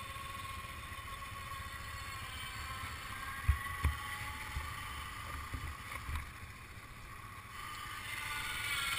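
An ATV's electric winch motor whines steadily as it reels in its rope, dragging a stuck ATV out of shallow water and sand. The whine grows louder near the end. Wind knocks on the helmet microphone a couple of times.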